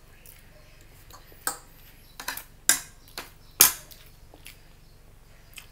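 Metal fork clinking against a plate about six times in quick succession, each a sharp clink with a brief ring. The loudest come about two and a half and three and a half seconds in.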